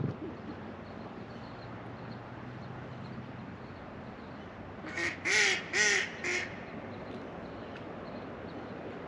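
A duck quacking four times in quick succession about five seconds in, over the steady wash of river water. A short low thump right at the start.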